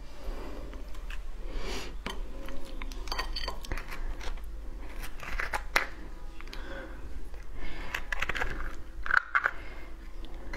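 Cooked crab being broken apart by hand: irregular crunches and snaps of shell as legs and pieces are pulled from the carapace, with soft wet squishing of the meat.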